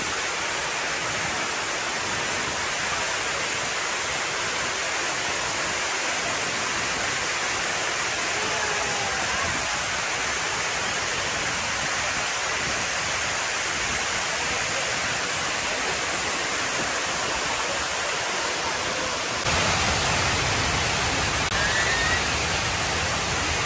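Water cascading down the tall grooved walls of the Hines Waterwall fountain and splashing onto its textured base: a steady, even rushing. Near the end it suddenly gets louder and deeper.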